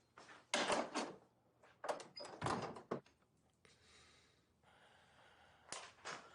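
A door being handled and people moving about: a series of knocks and thuds in small clusters, with a soft rustling hiss in the middle.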